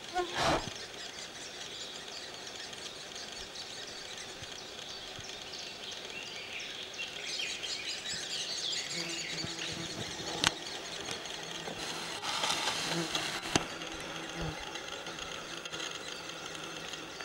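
Woodland birds chirping, with high short calls busiest a little before the middle. A short loud burst at the very start and two sharp clicks in the second half.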